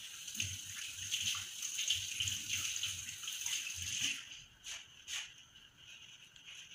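Hand-crochet handling noise: fine thread and fabric rustling against a steel crochet hook, with soft low bumps from the hands. It eases off about four seconds in, and two light clicks follow.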